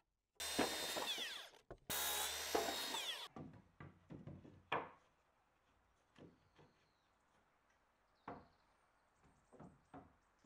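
A cordless circular saw run in two short bursts of about a second each, cutting timber, its motor winding down after each cut. A few light wooden knocks follow.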